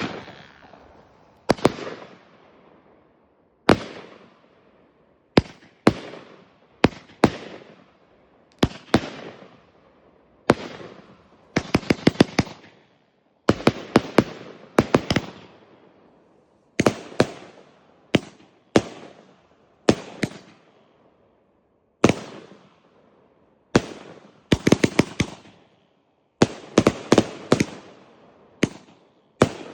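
Riakeo Poseidon firework battery firing shot after shot: sharp bangs every one to two seconds, each trailing off in a fading hiss, several followed by quick clusters of crackling reports.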